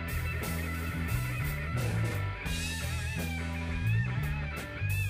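Live blues-rock band playing an instrumental passage: electric guitar over bass guitar and drums with regular cymbal hits, and a lead guitar bending notes from about halfway.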